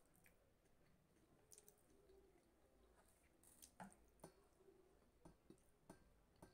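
Faint sounds of rice and dal being eaten by hand: soft chewing and squishing, with scattered small clicks that come more often in the second half.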